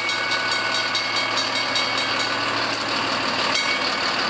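A KME fire engine's diesel engine idling steadily, with a thin steady high tone over it that breaks off about two seconds in and comes back near the end.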